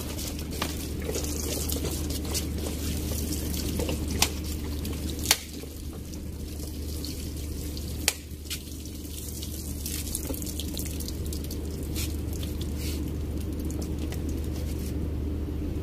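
Water trickling and dripping from a homemade watering can, a plastic bottle with holes poked in it, onto sandy soil. A few sharp clicks stand out, the loudest about four and five seconds in.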